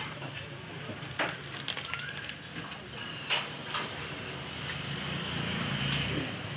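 A plucked rooster carcass being torn open and gutted by hand: a handful of short sharp snaps and cracks over a steady low background hum.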